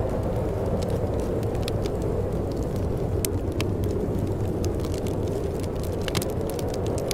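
Wood fire crackling in a fireplace with many irregular sharp pops, over a steady low rush of wind.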